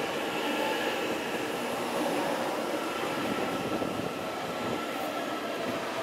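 Train running along the track: a steady rolling noise with a few faint held high tones, growing slightly quieter near the end.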